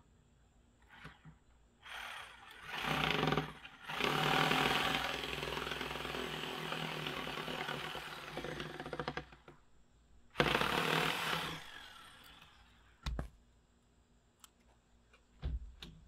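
Reciprocating saw (Sawzall) cutting through the top of a wooden post in three runs: a short one about three seconds in, a long one of about five seconds, and another short one about ten seconds in. A couple of brief knocks follow near the end.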